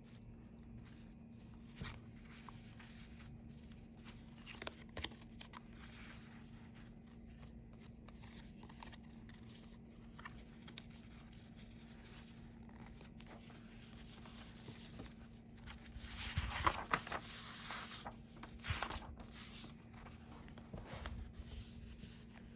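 Paper rustling and crinkling as a handmade junk journal's pages, tucked-in tickets and cards are handled. The loudest rustles come about two-thirds of the way through, as the pages are turned. A faint steady hum sits underneath.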